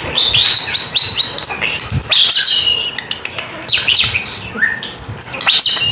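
Pet European starling singing: a rapid jumble of whistles, sliding notes and clicks with short breaks.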